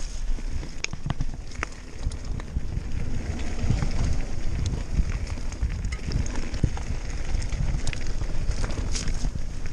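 Nukeproof Mega full-suspension mountain bike riding fast down a rough, stony trail: tyres crunching over loose rock, with a steady low rumble and frequent rattles and knocks from the bike.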